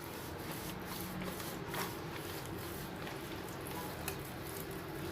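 Faint, soft squishing and rubbing of hands working flour over the skin and cavity of a raw duck, with a few light ticks.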